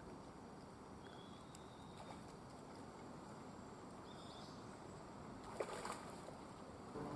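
Quiet outdoor background: a steady low hiss with a couple of faint, short high chirps, and a brief sharp noise about five and a half seconds in.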